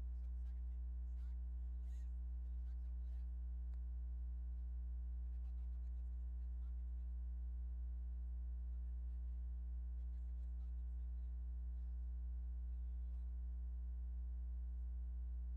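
Steady electrical mains hum: a constant low tone with a ladder of fainter higher overtones, unchanging throughout, with a few faint ticks in the first few seconds.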